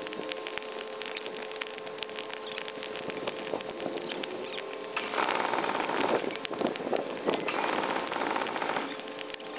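Wood fire crackling and popping in a fire-brick forge, with a faint steady hum under it. About halfway through, a louder rushing hiss comes in over the crackling for about four seconds.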